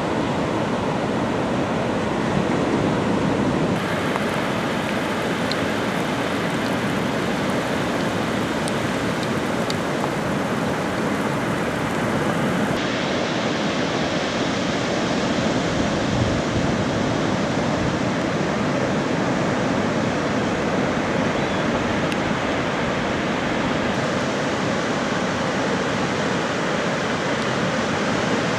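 Heavy ocean surf from hurricane swell: a steady rush of breaking waves, with sudden changes in tone about 4 and 13 seconds in.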